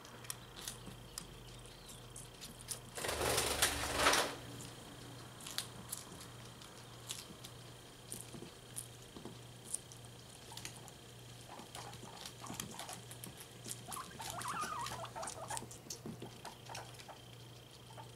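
Guinea pigs chewing cucumber: many small crunching clicks scattered throughout, with a brief louder rustling noise about three seconds in.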